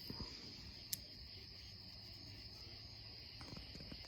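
A few faint clicks from the multitool's freshly loosened pliers being worked open and shut, over a steady high insect chirring.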